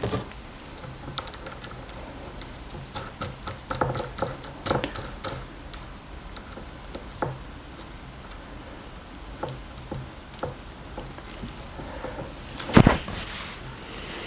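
Scattered small clicks and taps of metal parts being handled as a probe-tip adapter is fitted to an SMA connector, with one louder knock near the end.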